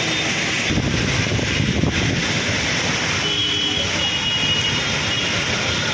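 Traffic passing on a rain-wet road: tyres hiss on the wet asphalt and engines rumble. It is loudest about one to two seconds in as a bus goes by.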